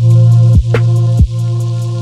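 Background electronic music: a heavy held bass with deep kick-drum hits that drop in pitch, about three in two seconds, and light hi-hat ticks.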